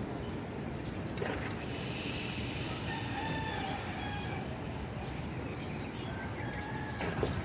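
A rooster crowing, heard as a held, wavering call about halfway through and a higher call later, over a steady background noise.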